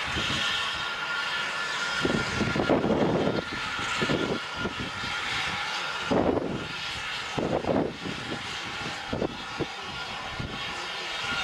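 Steam locomotive moving slowly with a steady hiss of escaping steam, from cylinder drain cocks venting around the wheels, and several irregular, heavier exhaust chuffs.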